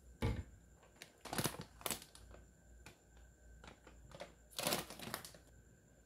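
A plastic bottle set down on a hard countertop with a single knock, then plastic packaging (a laundry-detergent bag and a soft refill pouch) crinkling and rustling in two short bursts as it is handled, with small clicks and taps between.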